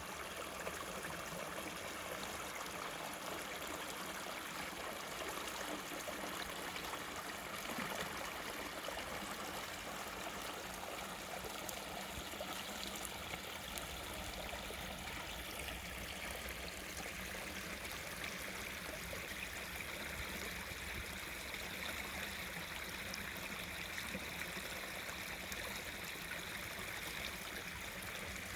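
Small forest stream babbling steadily over stones, a continuous trickling and gurgling of running water.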